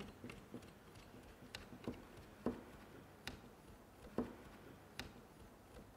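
Scattered light clicks and taps, irregularly spaced about once a second, from hands working wool yarn into the warp of a vertical loom.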